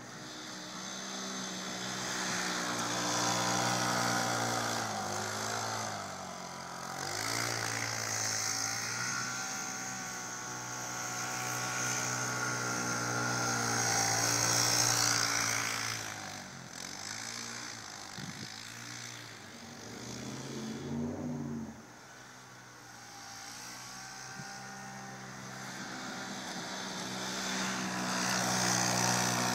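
Polaris Sportsman ACE UTV engine revving up and down again and again as it spins through deep snow, its pitch rising and falling with each burst of throttle. The engine eases back and goes quieter about two-thirds through, then builds again.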